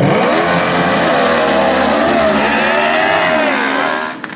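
Racing riding lawn mowers, a Craftsman among them, with their engines revving hard under full throttle as they accelerate down the strip. The engine pitch rises and dips repeatedly, and the sound falls away about four seconds in.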